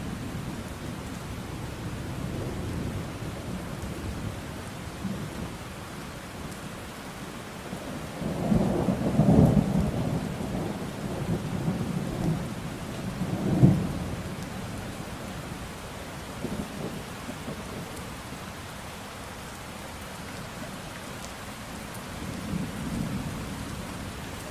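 Thunderstorm: steady rain falling, with rolling thunder. A long loud rumble comes about a third of the way in, a sharp thunderclap a few seconds after it, and a fainter rumble near the end.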